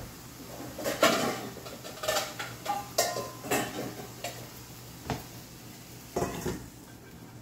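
Metal pots and pans clanking and knocking together as cookware is pulled out of a kitchen cabinet's wire rack: a run of separate clatters starting about a second in and going on for some five seconds.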